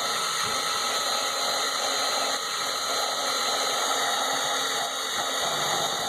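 Electric drill running at steady speed with a high motor whine, its small slot-cutting bit grinding sideways through plastic.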